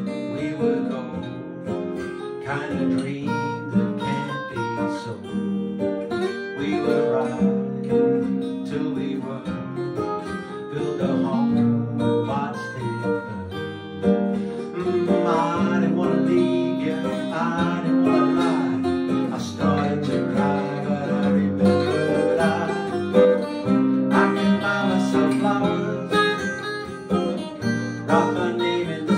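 Two acoustic guitars strummed together while a man sings a pop song over them.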